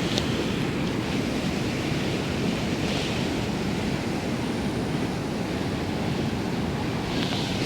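Swollen river in flood, rushing water making a steady, even noise, with a brief brighter splash-like hiss about three seconds in and again near the end.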